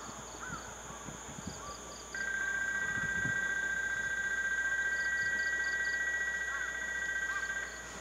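A steady two-tone electronic warning tone comes on suddenly about two seconds in, holds for about five seconds and cuts off shortly before the end. Under it, insects trill steadily and birds chirp in short bursts.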